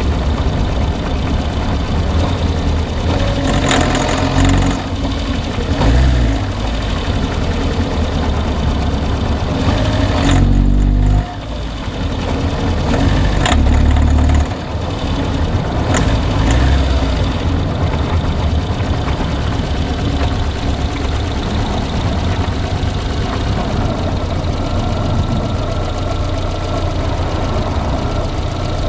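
Car engine idling with a knock, revved briefly a couple of times in the middle, with a few sharp clicks.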